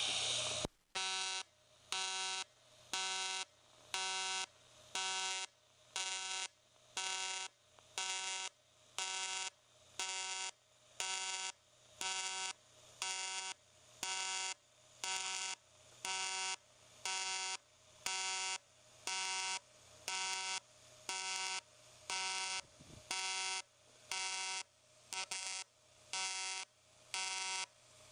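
Everlast 210EXT TIG welder's AC arc on aluminium sheet during a fusion weld, set to pulse: a buzzing hiss that switches on and off steadily about one and a half times a second, like a heartbeat.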